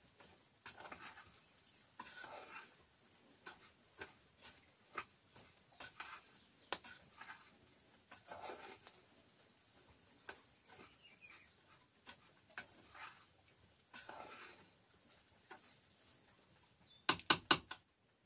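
Spoon stirring and scraping rice as it toasts in a pan, with scattered small clicks and short scrapes. Near the end comes a quick run of loud, sharp knocks.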